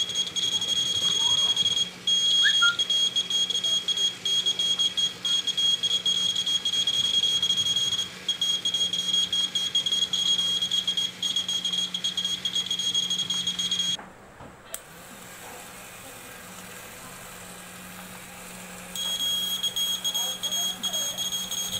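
Piezo buzzer of a homemade seismograph sounding its earthquake alarm, a steady high-pitched beep. It breaks briefly twice, cuts off about 14 seconds in, and comes back on about 5 seconds later.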